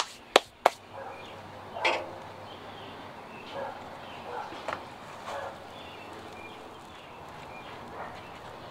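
Utensils handled at a steel flat-top griddle: three sharp clicks in the first second and a knock about two seconds in. After that, only faint scattered small sounds as a bread roll is cut and hollowed with a knife.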